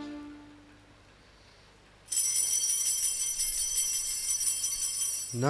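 Altar bells rung at the elevation of the chalice during the consecration: a sudden, continuous bright ringing begins about two seconds in and lasts about three seconds, after background music fades away in the first second. A man's singing voice starts just at the end.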